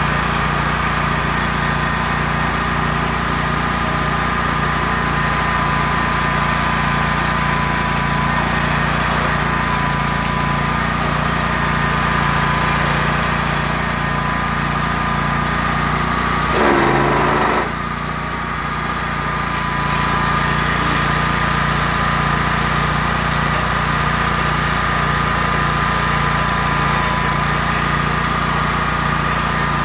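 Rayco RG 1625 stump grinder running steadily, its engine and spinning cutter wheel making an even hum with a high whine. About 17 seconds in there is a short burst whose pitch falls, and the engine dips under the load as the toothed wheel bites, then comes back up over the next couple of seconds.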